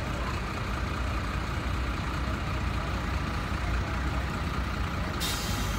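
Heavy fire-truck engines running in a passing convoy, a steady low rumble. A sudden high hiss starts near the end.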